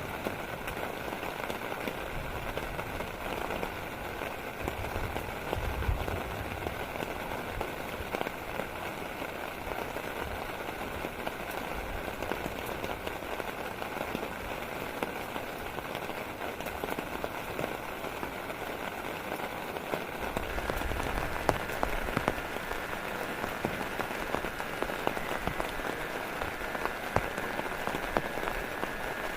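Steady heavy rain, with many separate drops pattering on a surface. A steady high-pitched hum sits underneath and grows louder about two-thirds of the way through.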